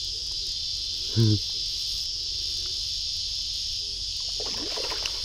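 Steady chorus of insects, a continuous high buzz at an even level. There is a brief vocal sound about a second in.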